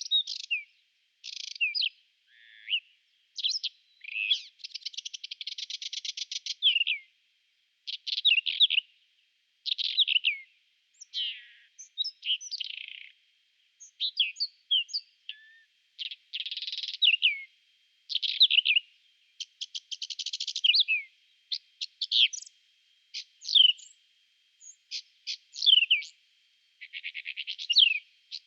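Whinchat singing: short, varied phrases of scratchy notes, quick whistles and fast rattling trills, each a second or two long, with brief pauses between them.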